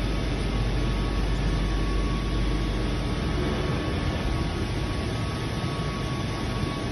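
COMEXI FI 3010 CNC ten-colour central-impression flexo printing press running in production: a steady, even mechanical din, heaviest in the low end, with a faint steady whine above it.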